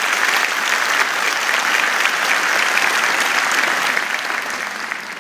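A large audience applauding, a dense steady clapping that thins out near the end.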